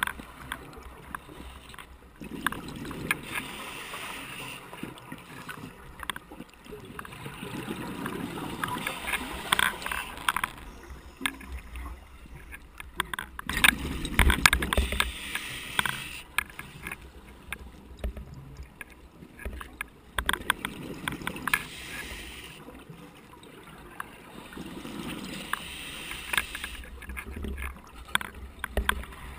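Scuba diver breathing on a regulator underwater: hissing inhalations alternating with bubbling exhalations, about five breaths in all. Through it runs a constant clicking rattle from the loose camera.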